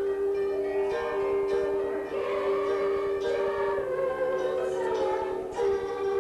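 Instrumental music with long held chords and a few struck notes.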